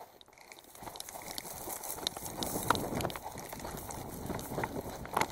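A person running, with footsteps and the rustle and knock of clothing and gear; it builds about a second in and continues as an uneven patter.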